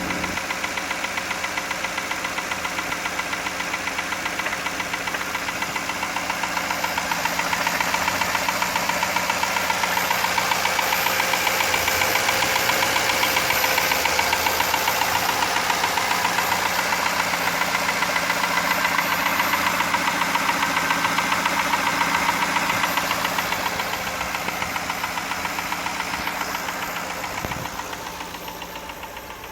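1999 Jaguar XJ8's V8 engine running with a rapid, steady rhythmic knock, a little louder from about seven seconds in and easing off near the end. The owner takes it for a spun rod bearing, likely from a low oil level.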